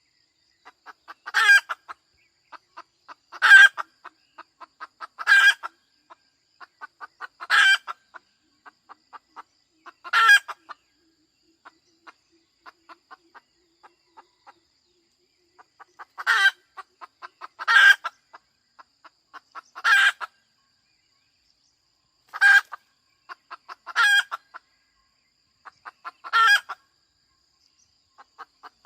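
Domestic hen cackling: runs of short soft clucks, each building to a loud squawk, repeated about every two seconds, with a few seconds of only soft clucking midway.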